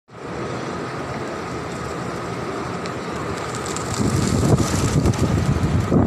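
Steady outdoor background noise with wind buffeting the microphone, the low gusty rumble getting louder about four seconds in.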